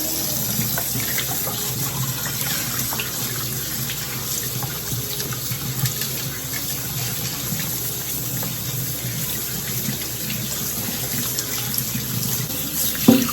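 Kitchen tap running steadily into a sink, with a few light knocks and a sharper one near the end.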